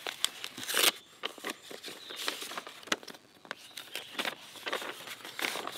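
Paper rustling and crinkling in short, irregular bursts as a folded letter is opened out and handled.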